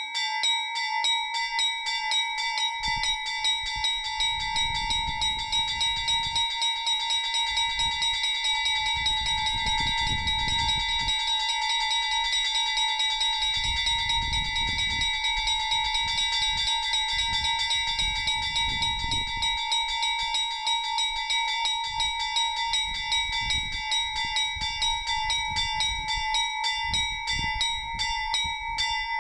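Orthodox monastery bells ringing a trizvon, the peal that calls to the Divine Liturgy: small bells struck in a quick, unbroken rhythm over the steady ringing of the bells.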